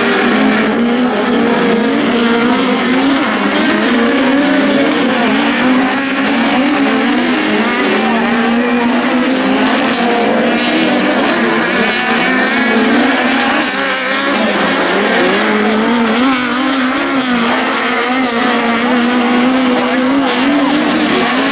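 Several 1600-class autocross buggies racing flat out on a dirt track, their engines revving continuously, pitch rising and falling as they accelerate and lift through the corners.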